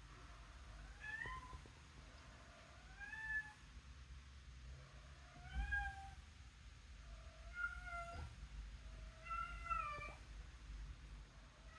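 Tabby-and-white domestic cat meowing five times, about two seconds apart, each meow arching up and then down in pitch.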